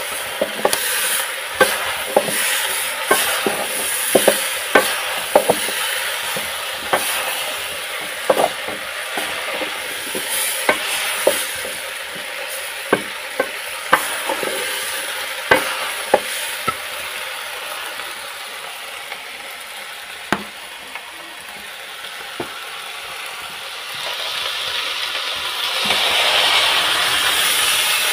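Beans and maize kernels frying in oil in a metal pot, a steady sizzle, with a metal spoon stirring and scraping and clicking irregularly against the pot. The clicks thin out past the middle, and the sizzle grows louder near the end.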